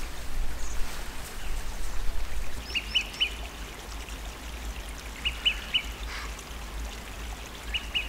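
A bird calling: short high notes in groups of about three, repeated every two to two and a half seconds, over a faint steady background of running water.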